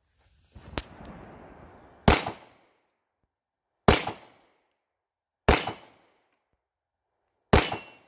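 Sarsilmaz B6 9mm pistol firing four single aimed shots, each a sharp crack with a short ringing tail, spaced about a second and a half to two seconds apart.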